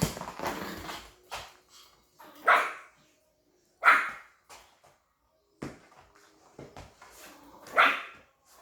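A dog barking three times, a few seconds apart, each bark short and loud, with scattered knocks and scuffling in between.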